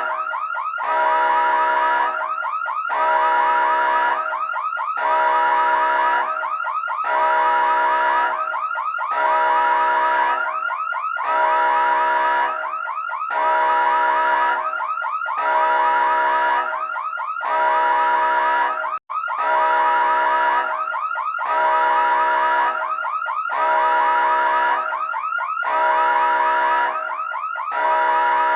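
Emergency siren with a fast wavering tone, sounding in a cycle that repeats about every two seconds. It cuts out for an instant about 19 seconds in.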